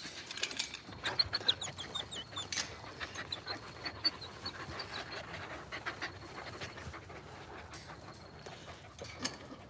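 Medium poodle panting steadily.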